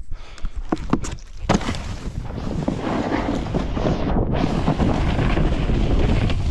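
A few knocks from the camera being handled, then a steady rush of wind on the microphone and a snowboard sliding over snow, slowly getting louder as the rider picks up speed.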